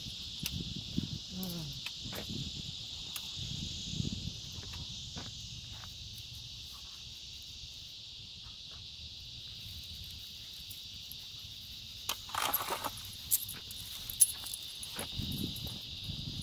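Steady high-pitched chorus of insects, like crickets, droning without a break, with scattered rustles and knocks from walking and handling the camera, most of them about twelve seconds in.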